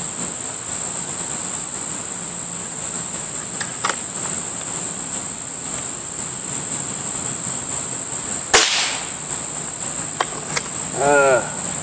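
One shot from a .22 Beeman RS2 break-barrel spring-piston air rifle a bit over two-thirds of the way in: a sharp crack with a short ring after it. It sits over steady high-pitched insect chirring, with a few faint ticks before and after it.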